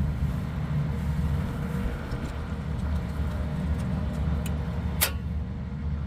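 Steady low machinery hum, with one sharp click about five seconds in: the IDEC plug-in control relay dropping out after the alarm reset, which re-enables the fan's VFD drive.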